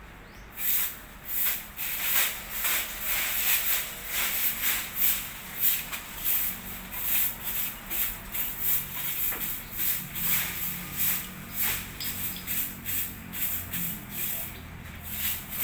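Broom sweeping a tomb slab in repeated strokes, about two a second, starting about half a second in.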